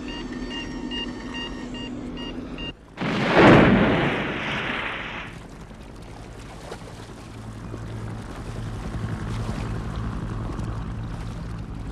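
Film soundtrack: a steady engine hum with regular high electronic beeps from a cockpit's instruments. About three seconds in, after a brief drop, comes a sudden loud rushing whoosh, which fades into a steady low engine drone that slowly grows.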